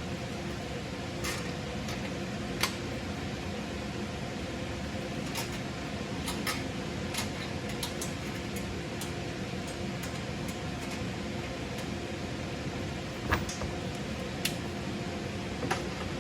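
Scattered light metallic clicks and clinks of bolts and hand tools as the mount's bolts are refitted, a few of them sharper knocks. Behind them runs a steady machine hum, like a fan.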